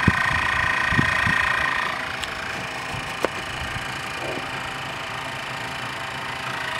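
Electric roof-lift motor of a Jayco pop-up camper running with a steady whine, which dies away about two seconds in and starts again at the very end. A few low knocks near the start and two sharp clicks in the middle come from handling inside the compartment.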